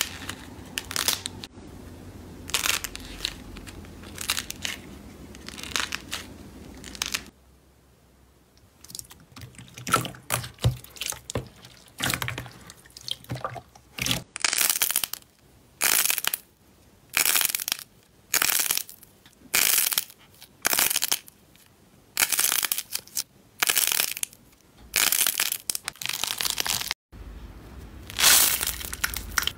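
Hands squeezing and pressing slime, mostly a bowl of clear blue slime: short, sticky squelching bursts, about one a second, with a quieter stretch about a quarter of the way in.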